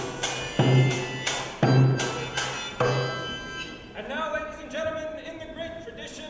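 A hand-held drum struck with a few loud single beats roughly a second apart, each ringing on. The beats stop after about three seconds, and a voice starts.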